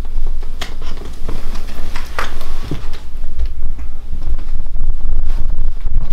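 Bedding rustling with scattered short scuffs and taps as a person shifts his weight across a bed, over a steady low rumble that is the loudest thing throughout.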